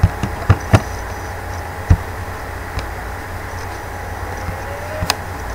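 Computer mouse clicking a few times, sharp clicks bunched in the first two seconds and one more near the end, over a steady low hum and hiss of the recording.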